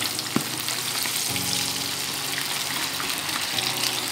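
Batter-coated catfish deep-frying in hot oil in a pan: a steady sizzle and crackle, with a sharp tap just after the start.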